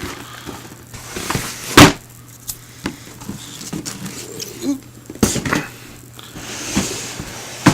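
Cardboard model-kit boxes being handled: rustling and small clicks, with two sharp knocks about two and five seconds in as a box is set down or bumped.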